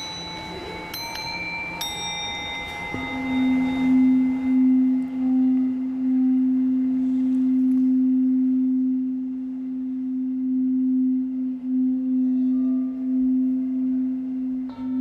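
Tibetan singing bowls: a few high ringing strikes in the first two seconds, then about three seconds in a low bowl sounds one long, steady tone that pulses in loudness as it rings. Another bowl is struck near the end.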